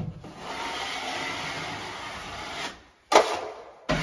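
A 10-inch steel taping knife scraping along paper drywall tape, pressing the excess joint compound out from behind it. One long stroke of about two and a half seconds, then a louder stroke starting sharply about three seconds in, and another beginning near the end.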